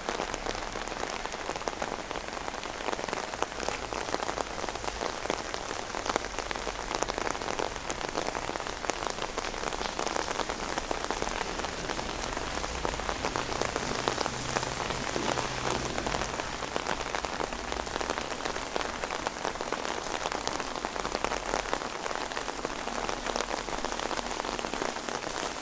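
Heavy rain falling steadily, a dense patter of drops striking the open umbrella overhead and the ground around.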